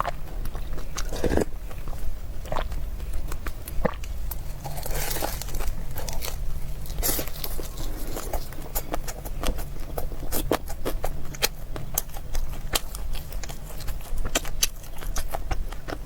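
Close-miked eating: chewing and crunching food in the mouth, with many irregular sharp wet clicks and smacks, over a steady low hum.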